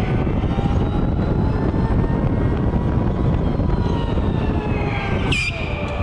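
Electric go-kart motor whining, its pitch sliding up and down with speed, over heavy wind rush on a helmet-mounted camera. A brief high squeal near the end.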